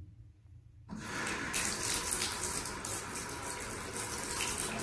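Jacuzzi tub faucet turned on: water running from the spout into the tub, starting about a second in and getting louder soon after.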